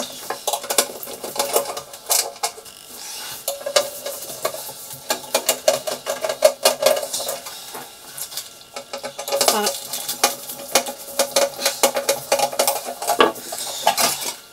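Irregular clicks, knocks and clatter of hard plastic and metal as a Pioneer CT-520 cassette deck is handled and moved about for inspection.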